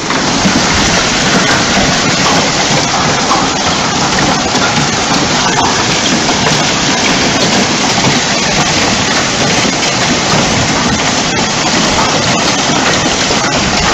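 Hailstones pelting down on the ground and parked cars: a loud, steady rush of impacts with scattered sharp clicks from individual stones.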